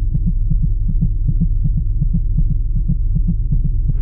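Muffled, heavily low-passed thumping of about six beats a second over a steady low rumble, with all the higher sound cut away.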